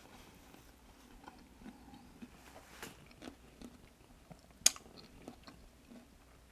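A person chewing food: quiet mouth sounds with scattered small clicks, and one sharper crunch about two-thirds of the way in.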